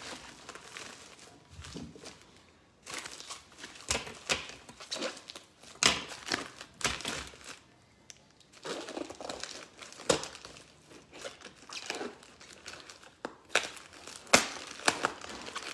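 Plastic parcel wrapping crinkling and rustling as hands handle and pick at a box wrapped in a black plastic bag and clear tape, with irregular sharp crackles.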